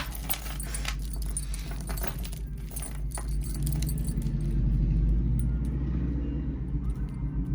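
Costume jewelry and loose beads clinking and jangling as the pieces are handled and sorted, with the clicks thickest in the first few seconds. A steady low hum runs underneath.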